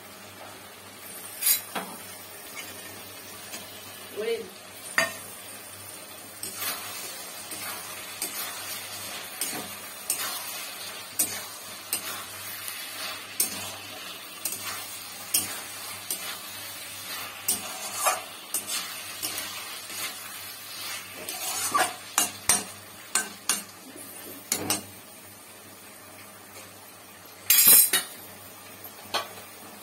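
Metal spatula stirring and scraping in an aluminium kadai, tossing paneer cubes and vegetables in a sizzling sauce, with irregular knocks of the spatula against the pan. Near the end there is a brief louder clatter.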